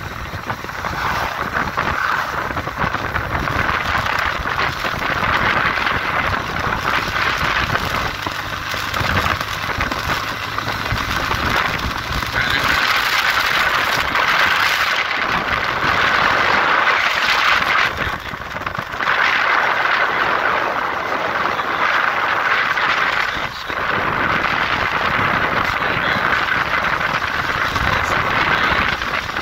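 Motorcycle riding at speed on a paved highway: a steady rush of engine and wind noise that dips briefly twice.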